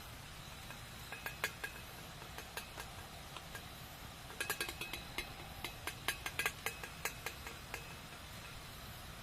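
Campfire crackling: sharp pops and snaps of burning wood over a steady low hiss, a few about a second in and a dense run of crackles through the middle.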